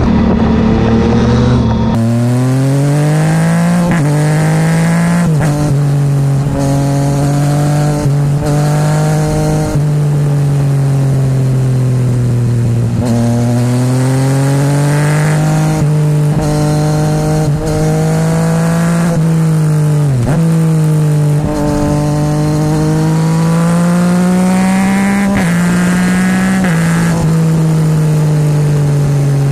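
Yamaha MT-09's three-cylinder engine breathing through an Akrapovic titanium full exhaust system with the baffle removed, accelerating hard. The pitch climbs and drops at each gear change several times over, with some stretches of rising and falling revs. Wind and road noise can be heard under it.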